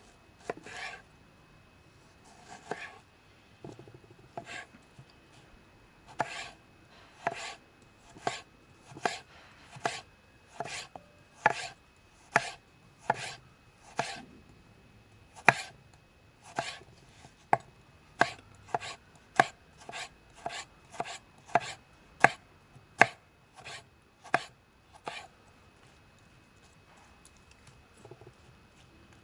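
A folding knife with a 9Cr18MoV steel blade chopping through a tomato, each stroke ending in a sharp knock on the surface beneath. The strokes come about once a second, quicken to about two a second past the middle, then stop a few seconds before the end.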